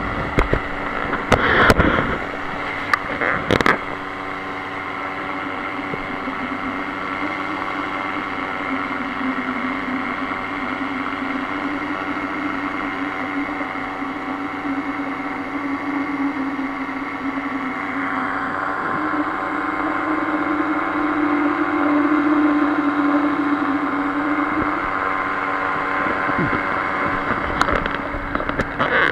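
Paramotor trike engine and propeller running steadily in flight, with a few sharp knocks in the first few seconds; the engine note rises a little and grows louder about two-thirds of the way in, then settles.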